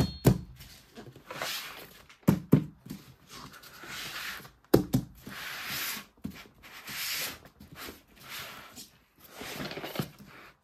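Toy packaging being handled and opened by hand: repeated short rustling and rubbing strokes of plastic, broken by a few sharp clicks and knocks, the loudest about five seconds in.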